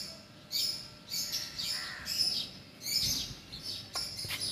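Small birds chirping repeatedly in short, high calls that fall in pitch, with a couple of light knocks near the end.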